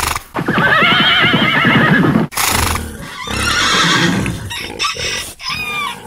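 A short burst of noise, then a horse whinny sound effect: one long, wavering call. Shorter animal-like calls follow it.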